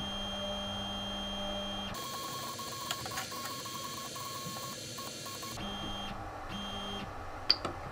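Robo 3D R1+ Z-axis stepper motors whining steadily as the axis is jogged upward from the front-panel controller. Their tone jumps higher about two seconds in and drops back about 5.5 s in. A single sharp click comes near the end.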